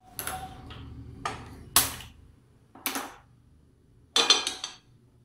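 Stainless steel pan clattering against the metal pan supports of a gas stove as it is set on the burner: several separate metallic clanks with a short ring, the loudest about two seconds in and a quick cluster about four seconds in.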